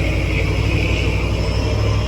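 Large truck's diesel engine running steadily with a low rumble under load.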